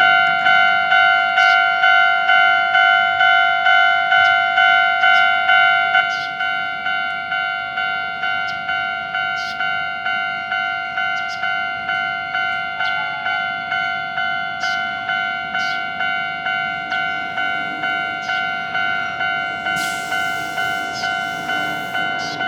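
Japanese railway level-crossing warning bell ringing its repeated 'kan-kan' strikes, about two a second, the signal that a train is approaching. It drops a little in loudness about six seconds in, and a rushing noise joins it near the end.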